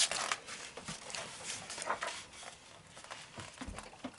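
Pages of a book being leafed through: paper rustling, with a sharp rustle at the start and another about two seconds in.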